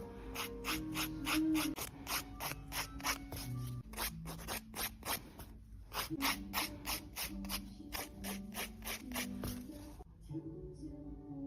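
A nail file rasping back and forth across a fingernail in quick, even strokes, about four a second, stopping about ten seconds in. Soft background music plays underneath.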